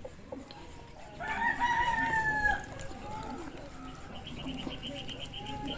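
A rooster crowing once, a long held call of about a second and a half that starts about a second in. Near the end, a short fast run of high chirps.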